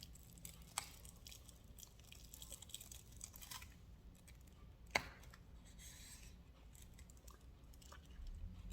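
Quiet handling sounds: rustling and scraping broken by small clicks, with a sharp click about a second in and a louder one near five seconds.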